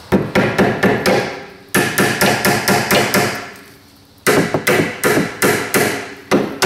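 Hammer repeatedly striking a rusted steel brake line fitting at its bracket, quick ringing metal-on-metal blows about four a second, to shock it loose from the rust. The strikes come in runs, with a short lull a little past halfway.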